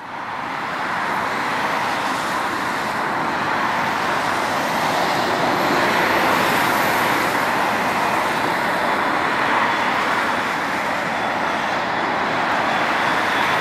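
Boeing 777-300ER's two GE90-115B turbofans at approach power on final approach, a steady rushing jet noise that fades in at the start and grows a little louder as the aircraft nears.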